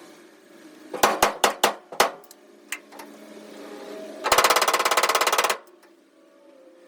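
Hammer blows on a sheet-steel floor panel. There are five sharp strikes in about a second and a couple of light taps, then a fast, even run of strikes lasting just over a second.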